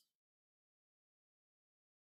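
Silence: the audio drops to nothing just after a brief sound cuts off at the very start.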